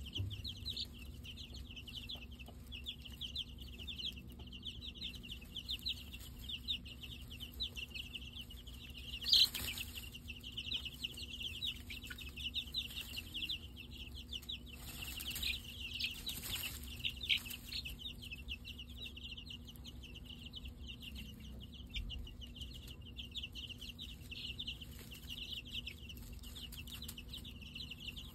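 A brood of baby chicks peeping constantly, many short high chirps overlapping, with a few short rustles in the middle, the loudest about nine seconds in.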